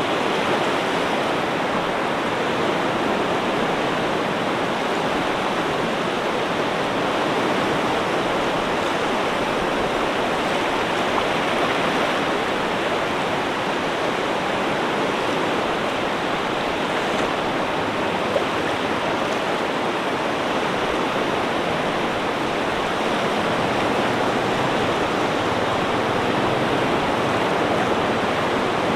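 Steady rushing water: an even wash that holds at one level, with no separate waves rising, breaking or drawing back.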